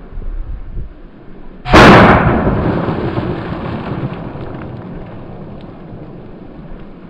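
A single .40 S&W pistol shot from a Taurus PT-100, about two seconds in, with the water jug hit, followed by a long deep decay that fades over several seconds.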